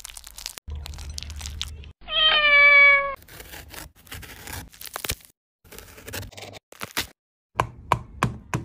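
A domestic cat gives one loud meow about two seconds in, falling in pitch and lasting about a second. Scattered clicks follow, and near the end a wooden rolling pin knocks on a whole pomegranate several times in quick succession.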